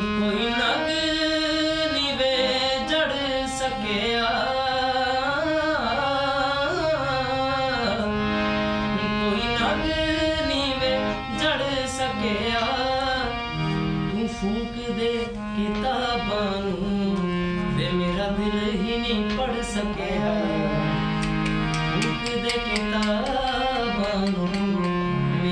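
Indian hand harmonium played, its held notes sounding under a man singing a long, bending, ornamented vocal line.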